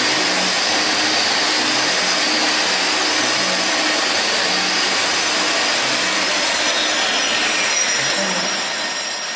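Hand-held grinder grinding a concrete surface, a steady dense grinding noise, with a Ruwac WNS2220 portable industrial vacuum running to pull off the silica dust. The sound starts to fade near the end.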